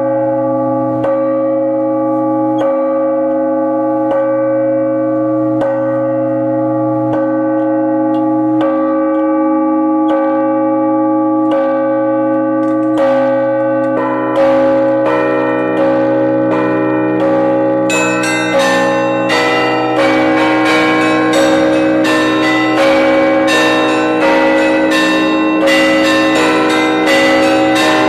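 Russian Orthodox church bells being rung for the all-night vigil. A deep bell is struck steadily about every one and a half seconds under long ringing tones. Midway, middle bells join, and about two-thirds through, small high bells come in with quick rhythmic strikes, building into a full peal.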